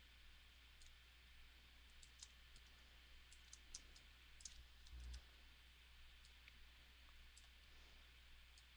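Near silence broken by faint, irregular computer mouse clicks, a dozen or so, as points of a selection outline are placed one by one. A low steady hum lies underneath.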